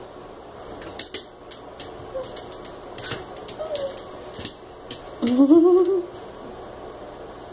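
Two puppies playing against a glass storm door: sharp clicks and knocks of paws and bodies striking the door's glass and metal frame, with a couple of faint short squeaks. About five seconds in comes a louder vocal call, under a second long, that rises in pitch.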